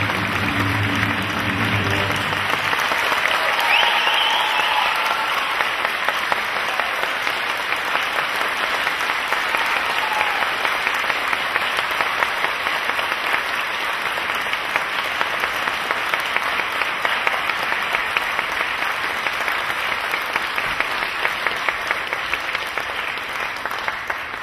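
Audience applauding as the music's last notes die away in the first two seconds. The clapping is dense and steady and tails off at the very end.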